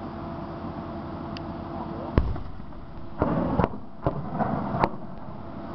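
A loud, sharp crack about two seconds in, then a few short bursts of rattling gunfire, heard over a steady engine hum.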